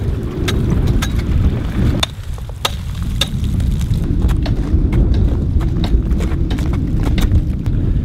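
Wind buffeting the microphone in a steady low rumble, with irregular sharp crunching clicks of crampon steps on glacier ice.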